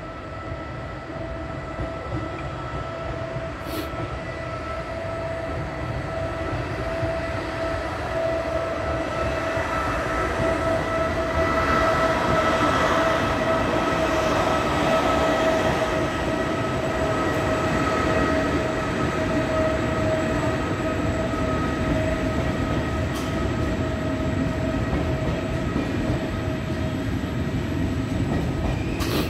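Regional electric train moving slowly through a station, heard from on board: a steady rumble with a high whine, growing louder over the first ten seconds or so and then holding.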